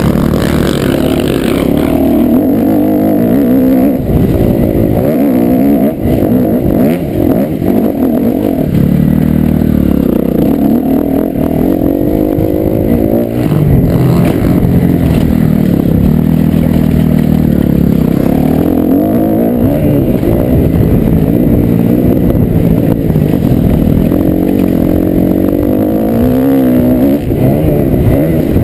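Kawasaki KX250F four-stroke single-cylinder motocross engine being ridden hard around a dirt track. It revs up and eases off again and again, its pitch rising and falling with throttle and gear changes, with brief drops where the throttle is shut.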